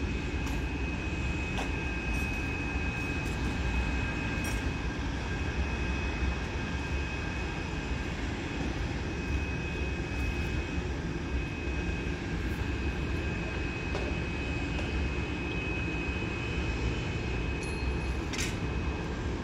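Boeing 747-400F freighter's four turbofan engines running at taxi power: a steady low rumble with a constant high-pitched whine.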